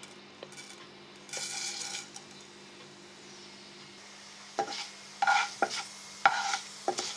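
Cumin seeds sizzling in hot oil in a kadai, with a short burst of sizzling about a second and a half in. From about four and a half seconds, a spoon stirs and scrapes against the pan in short repeated strokes.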